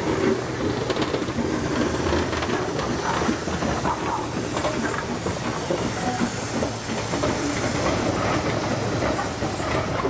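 Austerity 0-6-0 saddle-tank steam locomotive hauling a passenger train past, wheels clicking over the rail joints with a steady steam hiss.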